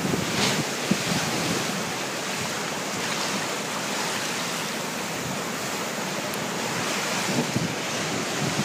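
Easterly gale blowing steadily, with wind buffeting the phone's microphone in a few low thumps near the start, over the rush of high-tide sea water washing across the flooded waterfront.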